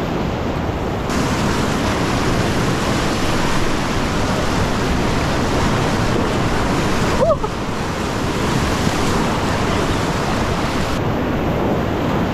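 Steady rush of class III whitewater rapids churning around an inflatable packraft. A brief squeaky tone sounds about seven seconds in.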